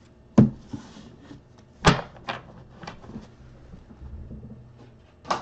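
Several sharp knocks and clacks with softer taps between them, the loudest about two seconds in: objects being handled and set down on a table.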